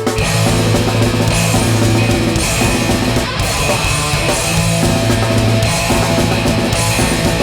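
Live hardcore punk band playing: distorted electric guitars, bass and a fast drum kit, loud and steady.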